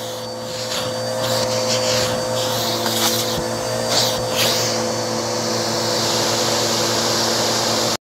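Red Bissell CleanView upright vacuum running over carpet with a steady motor hum and airflow rush. A few brief crackles about halfway through. The sound cuts off abruptly at the end.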